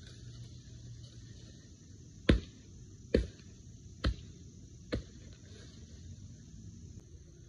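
Four chops of an axe into the base of a small dead, dry tree, about one a second, each a little quieter than the last.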